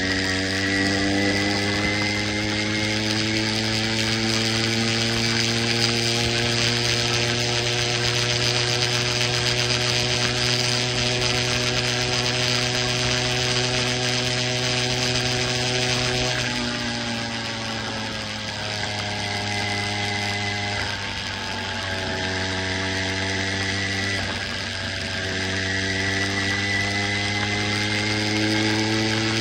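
80cc motorized bicycle engine running under way at a steady cruising speed, its pitch creeping slowly upward. About sixteen seconds in the revs drop off, dip twice more, then climb again near the end as the throttle opens.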